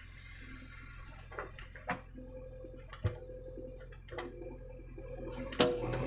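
Diesel engine of a JCB 3DX backhoe loader running steadily with a whine while the backhoe arm works the bucket, with a few sharp knocks about two, three and five and a half seconds in, the last the loudest.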